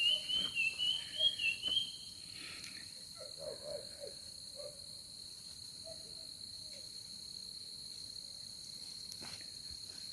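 Insects, crickets or the like, chirring in one steady high-pitched tone. For the first two seconds a wavering, whistle-like call sounds over it, with faint soft rustles now and then.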